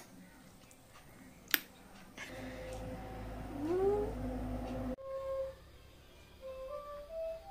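A cat gives one rising meow a little before the four-second mark, after a single sharp click. From about five seconds in, soft flute music plays in stepwise notes.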